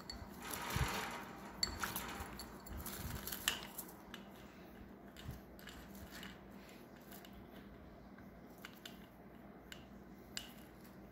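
Green-cheeked conure splashing briefly in its glass water dish near the start, followed by faint scattered clicks and rustles as the bird moves about the cage.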